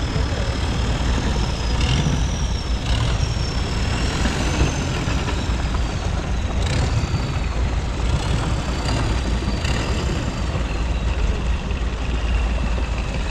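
Long-tail boat engine running steadily with a loud low rumble, its long-shaft propeller churning the water, and a thin high whine that drifts up and down in pitch.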